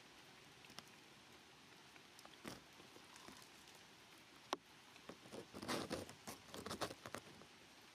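Faint crackling rustles and scuffs from macaques shifting about on concrete strewn with dry leaves, with a single sharp click about four and a half seconds in and a cluster of louder rustling near the end as the baby climbs down from its mother.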